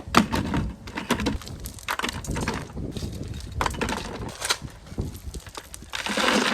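Broken chunks of concrete slab crunching and clattering, with irregular sharp knocks and one longer gritty scrape about six seconds in.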